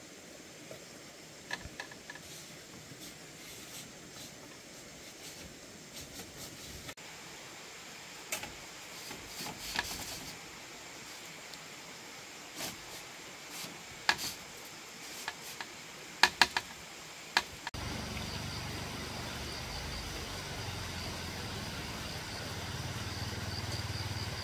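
Sharp clicks and knocks of bamboo poles being handled and tied into a frame, scattered and irregular, the loudest a quick run of knocks about two-thirds through. Then the sound changes abruptly to a steady outdoor hum with a faint high whine.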